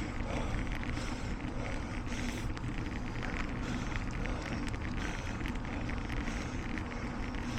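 Steady low rumble of wind buffeting the microphone, with a soft hiss rising over it about once a second.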